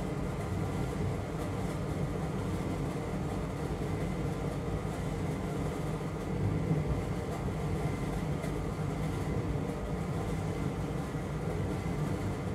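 Hot-air rework station blowing steadily while reflowing a chip on a Nintendo Switch motherboard, a constant airy rush with a faint high whine and a low hum.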